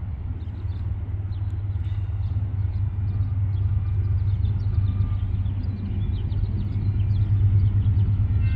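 Diesel locomotives of a Union Pacific freight train approaching, their engines giving a deep, steady rumble that grows louder as they draw near.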